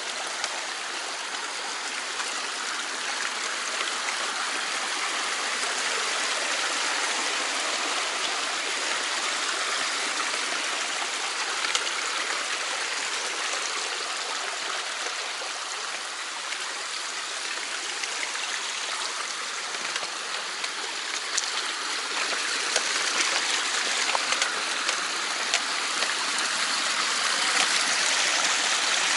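Mountain stream rushing and gurgling steadily, with a few faint taps in the second half.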